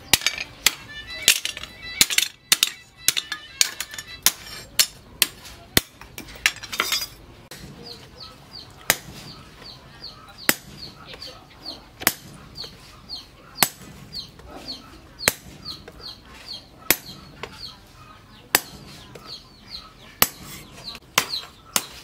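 Hammer blows forging a red-hot piece of chainsaw steel on a steel anvil, each strike ringing. Quick blows about twice a second for the first seven seconds, then single strikes about every second and a half.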